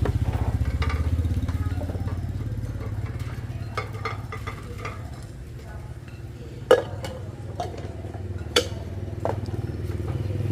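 A motor running steadily with a low, even hum, over a few scattered clinks and knocks; two sharp clinks stand out in the second half.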